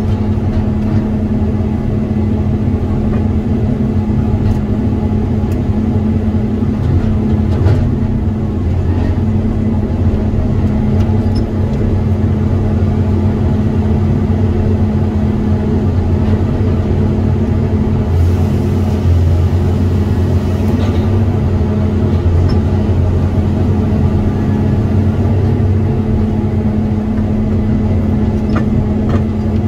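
Tigercat 234 knuckleboom loader's diesel engine running steadily under working load, with a few light knocks as the grapple handles logs.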